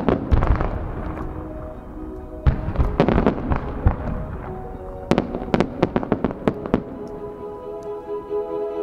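Fireworks display: three rapid volleys of shell bursts, a series of sharp cracks and booms, the first about a second in, then a longer cluster two to four seconds in and another from five to seven seconds. Show music plays underneath and grows stronger near the end.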